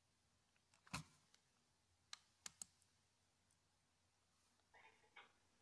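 Near silence with a few faint clicks: one about a second in, then three more in quick succession around two to two and a half seconds in.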